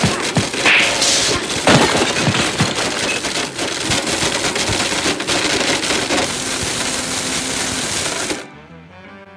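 Blendtec Total Blender chopping a plastic action figure: loud, dense, rapid clattering of hard plastic pieces thrown against the jar over the motor, cut off abruptly about eight and a half seconds in, leaving quieter music.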